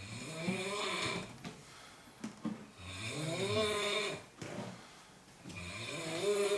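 A sleeping person snoring: three drawn-out snores about three seconds apart, each with a buzzing pitch that bends up and down.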